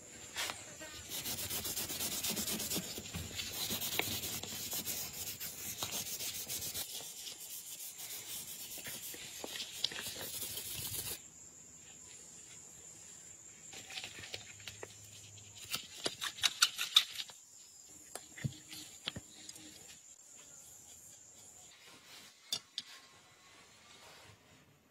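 A cloth rag rubbing back and forth over a wooden pistol grip panel, a steady scratchy rubbing that cuts off suddenly about eleven seconds in. After that, scattered light clicks and taps, with a quick cluster of them a few seconds later.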